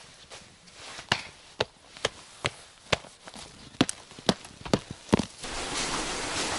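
Boots crunching on frozen snow: about ten sharp crunches, roughly two a second. Then, about five and a half seconds in, a steady rush of wind on the microphone.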